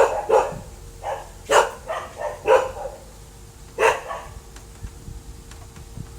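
A dog barking in short barks, about seven in the first four seconds, then stopping; a faint steady hum runs on after the barks.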